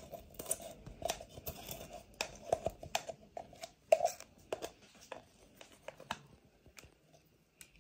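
Hands kneading and squishing slime full of styrofoam beads in a clear plastic tub: irregular sticky crackles and small taps against the plastic, thinning out near the end.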